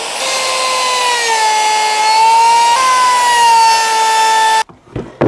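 Electric router running at high speed and cutting a recess into pallet wood, its high whine sagging in pitch as it bites and rising again, then cutting off suddenly near the end. Two short knocks follow.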